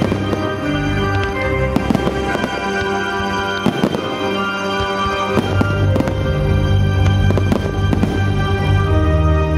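Aerial firework shells bursting in a series of sharp bangs over loud music with long held notes.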